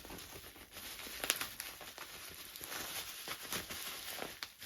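Packaging being handled and unwrapped by hand: crinkling with scattered small clicks and taps.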